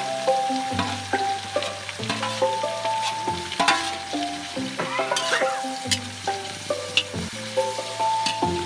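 Chopped goat meat sizzling in a wok as a spatula stirs and scrapes it, with repeated sharp clinks of the utensil against the pan. Background music with held notes plays underneath.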